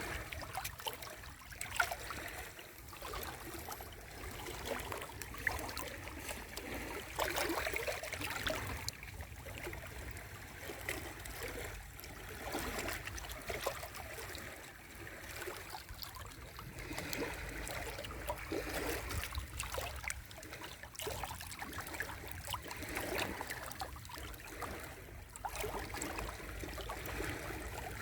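Small sea waves washing and splashing against the shore, an irregular wash of water that swells and ebbs every few seconds.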